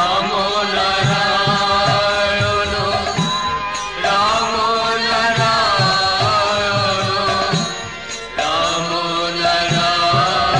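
Devotional song music: a wavering melody line over a regular drum beat, in phrases that start afresh about every four seconds.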